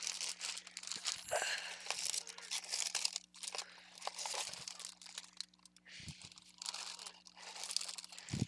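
Plastic bags and packaged craft trims crinkling and rustling as they are handled and stuffed into a big bag, a dense run of crackles with a couple of brief lulls.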